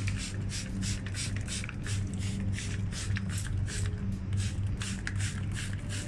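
Wet parakeets rustling their feathers as they shake and preen after a bath: a quick, irregular run of short dry rustles and crackles, several a second, over a low steady hum.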